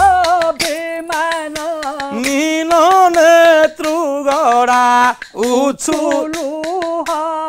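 Dasakathia singing: a high male voice holding long, wavering melodic lines without clear words, over quick, sharp clicks of the kathia wooden clappers.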